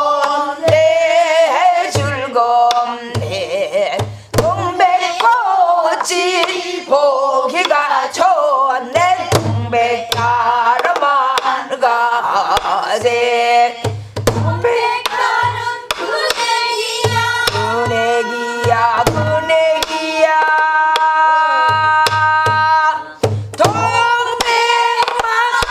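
A woman singing a Namdo folk song in the pansori voice, with a wavering, bending pitch. She keeps the semachi rhythm herself on a buk barrel drum: repeated deep strokes on the drumhead and sharp clicks of the stick.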